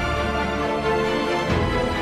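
Instrumental background music: held chords over a steady bass line, with a new chord coming in about one and a half seconds in.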